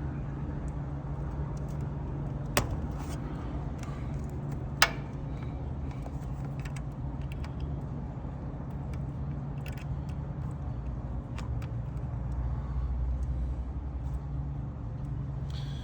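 Small metallic clicks and handling taps of wire spade connectors being pushed onto the terminals of an AC unit's new run capacitor and hard start kit. Two sharp clicks stand out, about two and a half and five seconds in, over a steady low outdoor rumble.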